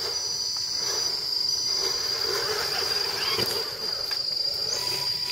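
Steady, high-pitched drone of insects, holding one unbroken tone.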